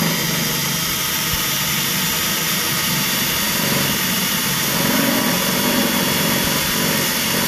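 Power drill running steadily with a small titanium-coated bit on an extension, boring through the sheet-metal fender and inner wheel-well panels to make bolt holes, with a steady motor whine.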